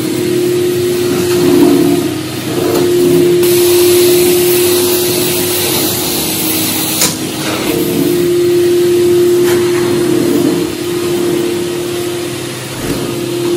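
Ashbys Enforcer carpet extraction machine running, its vacuum motors giving a steady whine over the rush of air sucked in through the floor wand as it is drawn across carpet. For a few seconds in the middle the hiss from the wand grows louder and brighter, then a sharp click comes about seven seconds in.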